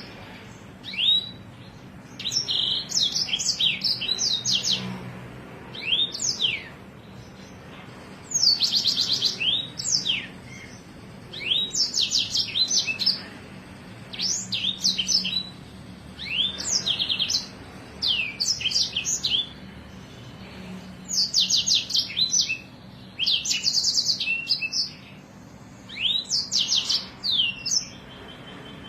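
A songbird singing a chattering song of fast, repeated high notes in short bursts every second or two, with brief pauses between them. Rapid trilled rolls and sharp sweeping 'shot' notes of the kind used as a masteran recording for teaching caged songbirds.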